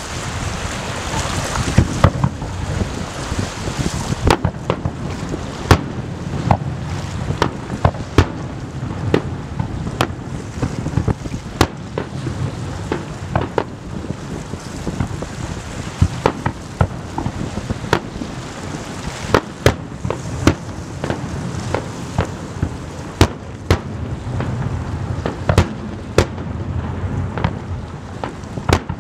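Fireworks display: shells bursting in a long run of sharp bangs at irregular spacing, often one or two a second, over a steady low rumble and hiss.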